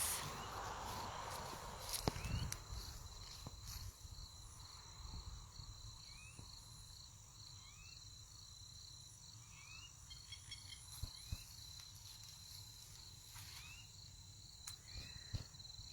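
Faint evening insect chorus, a steady high-pitched trilling, with short rising bird chirps every few seconds and a few soft clicks.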